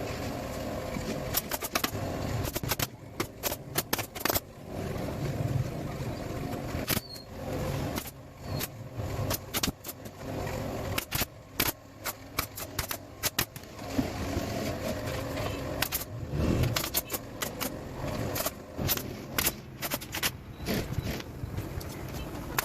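Irregular sharp clicks and knocks of upholstery tools, some in quick runs, over a steady low background noise.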